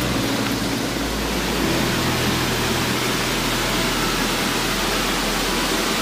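Waterfall rushing over a wide rock ledge: a steady hiss of falling water.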